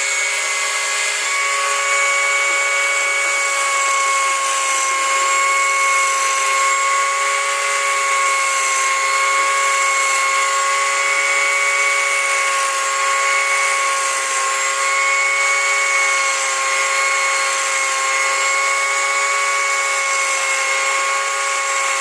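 Small electric grinder used to sharpen a chainsaw chain, running steadily with a high, even whine.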